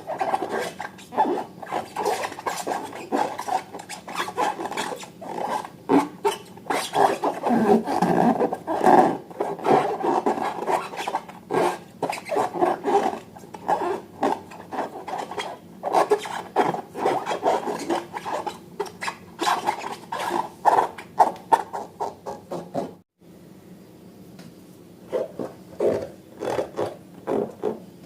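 Hands rubbing and squeezing balloons and slime, making a dense run of short rubbing, squishing sounds. About 23 seconds in, the sound drops out abruptly and then continues more quietly and sparsely.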